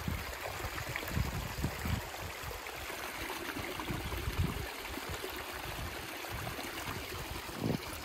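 Small stream rushing steadily down a little waterfall, with occasional low thumps.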